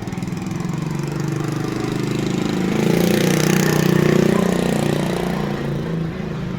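A small engine running steadily, getting louder to a peak around the middle and easing off slightly toward the end.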